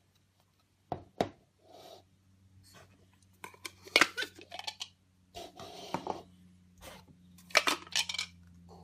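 Plastic stacking cups clicking and clattering against each other as they are handled, in several short bursts of knocks. A faint steady hum runs underneath.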